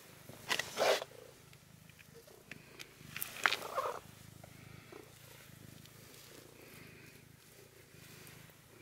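Black domestic cat purring steadily, a low pulsing purr, with two short louder noises about half a second in and again around three and a half seconds in.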